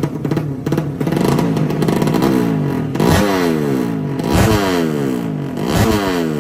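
Drag-racing underbone motorcycle's 200 cc horizontal-cylinder ('sleep') engine revved at the start line in a series of sharp throttle blips from about two seconds in, the pitch falling away after each.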